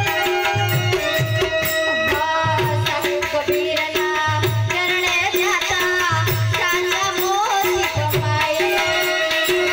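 A woman singing a Gujarati folk song into a microphone over an electronic keyboard, which holds steady chords and plays a tabla-style drum rhythm, all amplified through a sound system. Her voice bends and wavers through ornamented notes in the middle.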